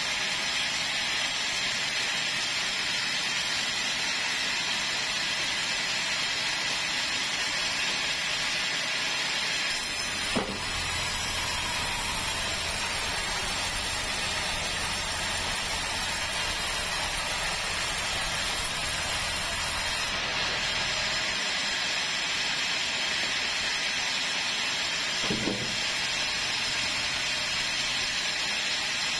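Sawmill band saw running and ripping a squared keruing timber, a steady hissing rasp of the blade through the wood. A lower hum joins from about ten to twenty seconds in, and there are two short knocks, one about ten seconds in and one near the end.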